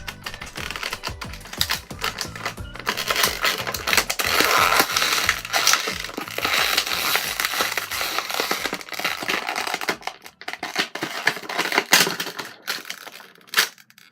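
Stiff plastic blister packaging being handled and pulled open, with dense crackling, crinkling and quick clicks. The crackling thins out and dies down near the end.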